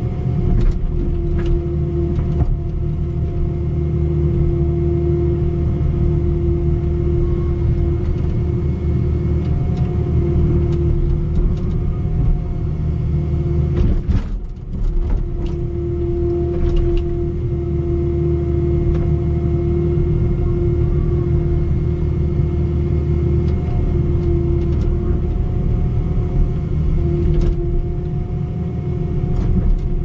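Mini excavator's engine running steadily under work, a constant hum with a brief dip about halfway through.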